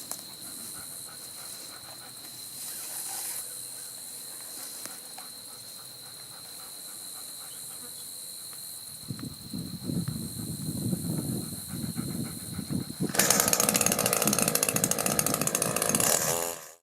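Crickets or other insects trilling steadily, a continuous high-pitched tone. About nine seconds in a low rumbling noise builds, and from about thirteen seconds a loud rushing noise takes over before cutting off suddenly.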